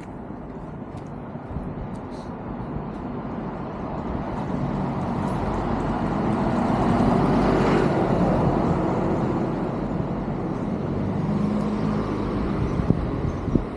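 A motor vehicle drives past on the street, its tyre and engine noise building to a peak about halfway through and then fading away.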